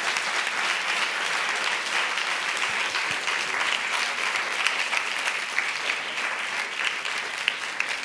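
Audience applauding: dense, steady clapping at the end of a talk.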